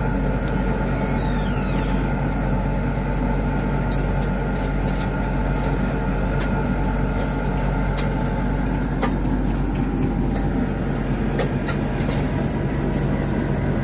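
Steady machine drone with a low hum at a burger grill, with a brief falling squeak about a second in and scattered sharp clicks and clinks in the second half.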